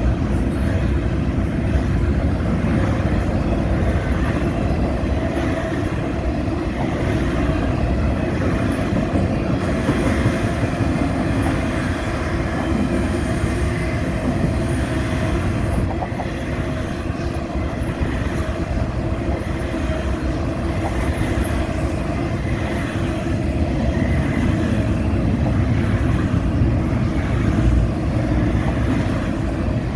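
Intermodal freight train rolling past, a steady, unbroken rumble of railcars on the track.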